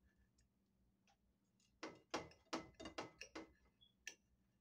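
A table knife sawing through a toasted grilled cheese sandwich on a plate: a quick run of crunching strokes through the crisp crust, with one more stroke near the end.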